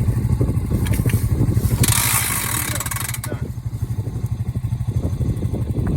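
Honda Rancher 420 ATV's single-cylinder engine running under load as the quad tows a log, with a steady pulsing exhaust note. About two seconds in, a rushing hiss rises over it for about a second.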